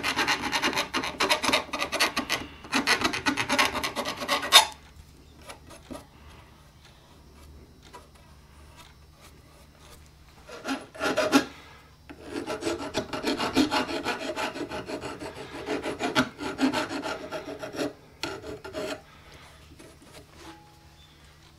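Hand file rasping on the cut steel muzzle end of a shotgun barrel in quick repeated strokes for the first few seconds. It stops, a short scrape comes about eleven seconds in, and then another run of filing strokes follows.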